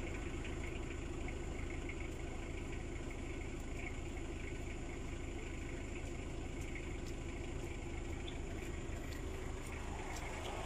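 Car engine idling, a steady low rumble that holds even throughout.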